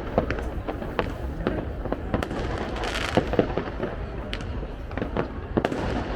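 Fireworks display: a rapid, irregular series of sharp bangs, several a second, with a burst of crackling hiss about three seconds in.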